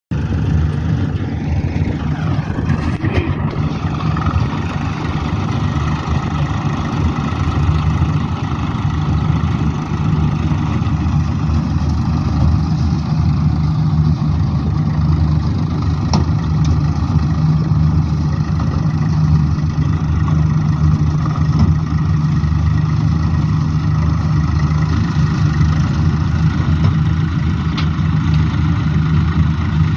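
Tractor diesel engine running steadily under load while it drives a tractor-mounted soil loader lifting earth into a trailer.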